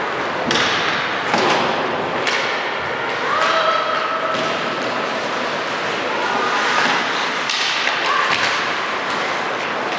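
Ice hockey game: several sharp knocks of stick, puck and boards over the steady noise of the rink.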